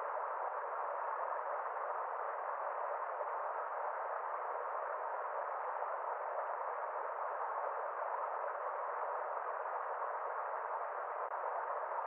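Small waterfall pouring into a stream pool: a steady, even rush that sounds muffled, with neither a deep rumble nor bright splashing.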